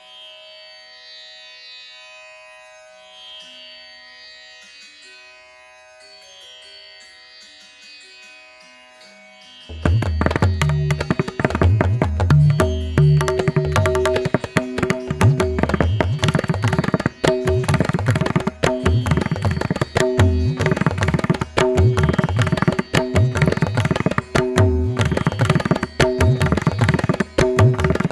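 Indian devotional instrumental music: a soft melody of held, stepping notes for about ten seconds, then loud tabla-style drumming comes in suddenly with a busy beat over a sustained melodic line.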